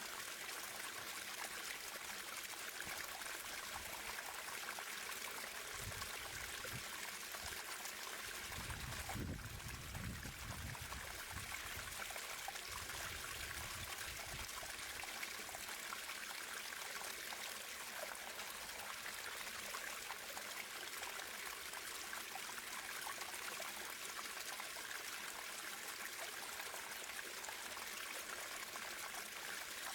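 Natural running water flowing and trickling steadily, with a brief low rumble for several seconds about a quarter of the way in.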